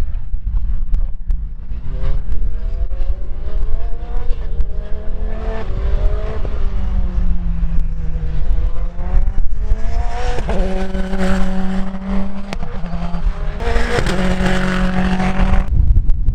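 Praga R1T race car's engine driven hard on track, its pitch climbing through the revs and dropping several times as the car accelerates, shifts and lifts, over a heavy low rumble.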